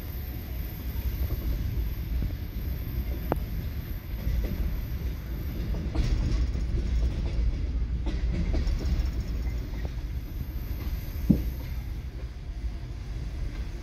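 Passenger train on the rails: a steady low rumble with a few sharp clicks, the loudest about eleven seconds in.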